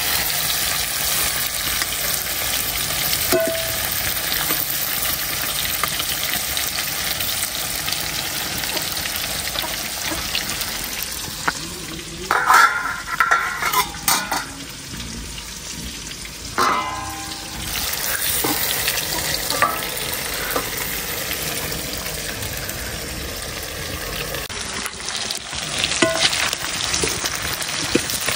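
Pieces of local rooster meat frying and sizzling steadily in a pan. Stirring scrapes and clatters against the pan in louder bursts twice around the middle.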